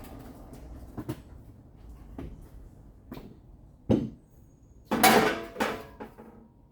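Sheet-metal body parts being handled: scattered knocks, a sharp knock about four seconds in, then a loud metallic clatter about five seconds in with a second, shorter clatter just after.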